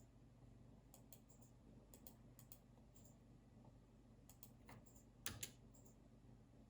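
Faint, scattered computer keyboard keystrokes and clicks, coming a few at a time with pauses between, and a slightly heavier knock about five seconds in.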